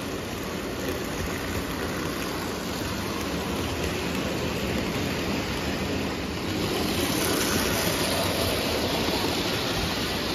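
Lionel O gauge toy trains running on three-rail tubular steel track: a steady rolling rumble of metal wheels on the rails. It grows louder about six and a half seconds in as a freight train passes close by.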